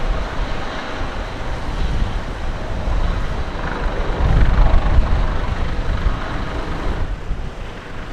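Wind gusting against the microphone, with a low rumble underneath and a hiss that swells about halfway through.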